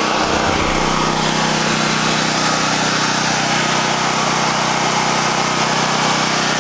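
Predator 9000-watt portable generator's 420cc single-cylinder engine running steadily with no load on it, shortly after a cold start, heard close up.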